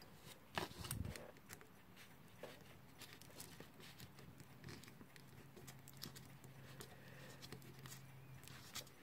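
Faint, scattered clicks and taps of small metal clock parts being handled and fitted onto the cast movement plate of a 1947 Timlec Lectolarm synchronous alarm clock, a little busier in the first second. A faint low hum starts about four seconds in.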